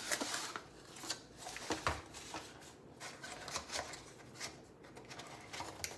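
A small cardboard perfume box being handled and opened: light rustling and scraping of card and packaging, with a few sharper clicks and taps.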